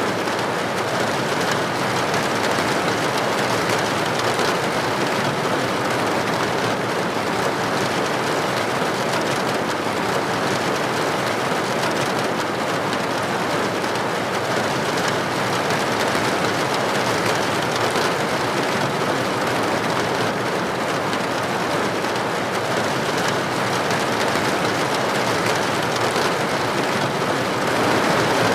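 Steady rain falling, heard as a continuous, even hiss with no let-up.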